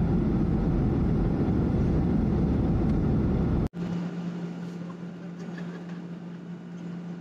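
Airliner cabin noise in flight: a loud, steady roar of engines and rushing air. About three and a half seconds in it cuts off abruptly and gives way to a quieter steady hum.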